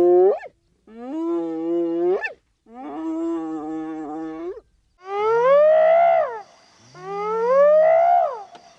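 Hyena calling: a series of drawn-out, pitched calls, each about one to two seconds long with short gaps between. The earlier calls hold a steady pitch and flick upward at the end; the last two swoop up and then fall away.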